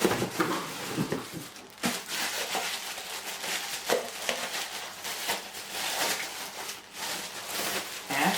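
Hotpot bowls and their lids being handled and unpacked: irregular crinkling of packaging with light knocks and clatters of the pots.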